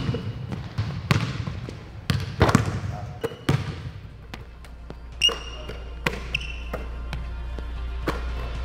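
Basketballs bouncing on a hardwood gym floor during a shooting drill, with sharp thuds scattered through and a few short, high sneaker squeaks. A low steady hum comes in about halfway.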